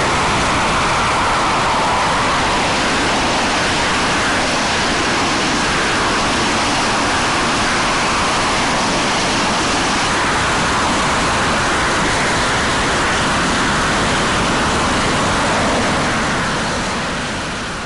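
SEPECAT Jaguar's twin Adour turbofan jet engines in reheat on the take-off run: a loud, steady rushing jet noise that fades away near the end.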